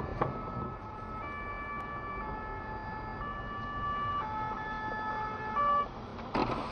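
Emergency vehicle siren sounding in held tones that switch pitch roughly once a second.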